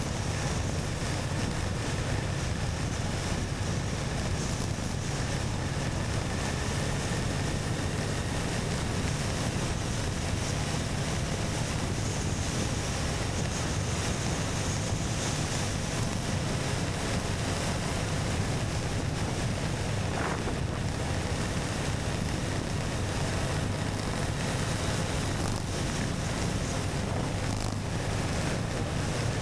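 Motorcycle riding at a steady pace: constant wind rush over the microphone over a low, even engine and road drone.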